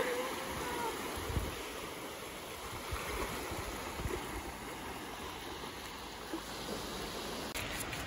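Small waves breaking and washing up the sand in a steady hiss. The end of a seagull's call fades out in the first second.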